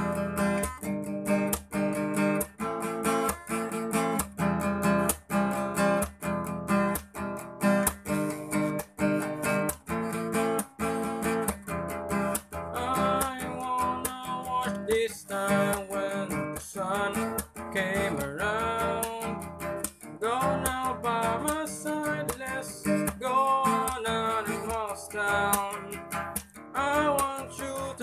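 Acoustic guitar strummed in steady rhythmic chords. From about halfway a voice sings along over the strumming.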